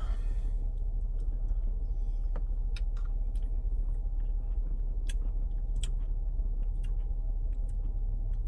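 Steady low rumble of a car heard from inside its cabin, with a few faint scattered clicks.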